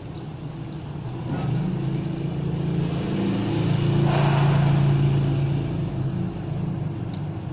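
A motor vehicle passing by: a low engine hum that swells a second or so in, is loudest about four to five seconds in, then fades.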